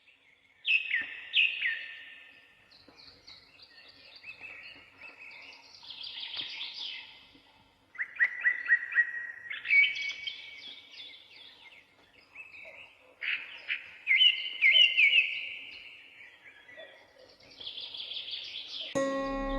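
Songbirds singing outdoors: bursts of quick chirping phrases every few seconds, with quieter twittering in between. Just before the end, music with sustained bell-like tones comes in.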